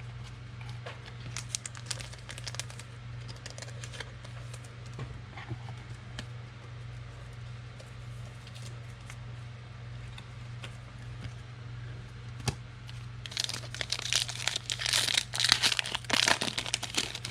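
Foil wrapper of a 2020 Panini Prestige football card pack being torn open and crinkled, loudest in the last few seconds, after lighter rustling and clicks of cards being handled. A low steady hum runs underneath.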